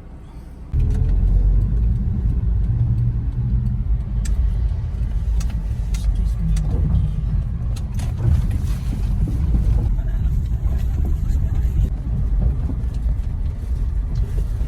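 Vehicle in motion: a loud, steady low rumble that starts abruptly about a second in.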